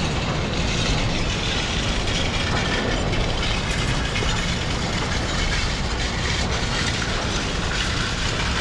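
Heavy scrapyard shredding machinery chopping up scrap metal: a steady low rumble with a dense, continuous clatter of metal.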